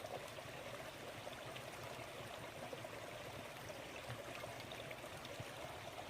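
Small woodland brook babbling steadily.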